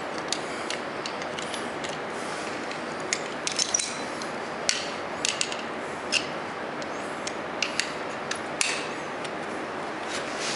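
Screwdriver and locking pliers clicking and scraping against a rusted, heated brake drum retainer screw on a Ferguson tractor as it is worked loose, at irregular intervals over a steady hiss.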